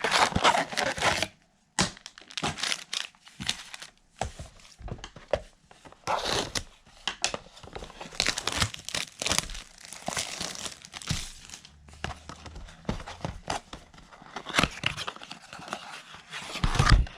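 Plastic wrapping on boxes of trading cards crinkling and tearing as it is ripped off by hand, in irregular crackling bursts with brief pauses.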